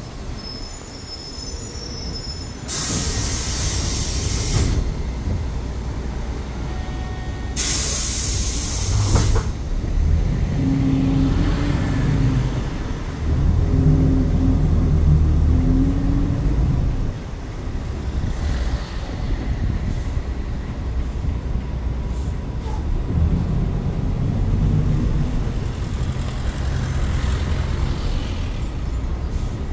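Inside a city bus: two loud hisses of compressed air a few seconds apart from the bus's pneumatic air system, then the engine drone swelling as the bus pulls away, easing off and rising again near the end.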